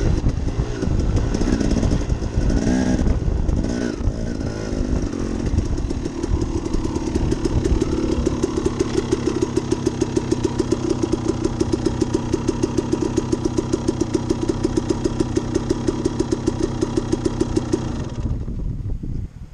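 Dirt bike engine slowing down, then idling with an even, pulsing beat, and shut off about a second before the end.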